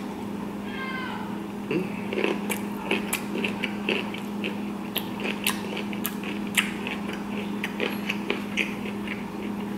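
Close-up mouth chewing a mouthful of broccoli, with irregular wet crunches and smacking clicks, over a steady low hum.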